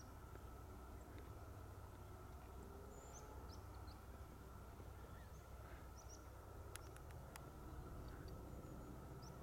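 Faint outdoor ambience: scattered short, high bird chirps over a low steady rumble, with a few sharp clicks about seven seconds in.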